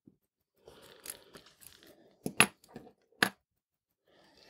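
Close-up handling noise from fitting a small part onto a watch movement held in a movement holder: soft rustling with a few sharp clicks, two about halfway through and one more a second later.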